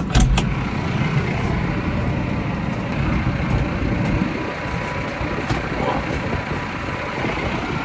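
Massey Ferguson 5711 tractor engine running steadily under way, with a few sharp knocks right at the start.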